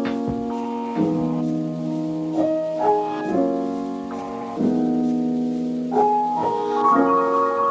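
Background piano music, slow sustained chords that change about once a second.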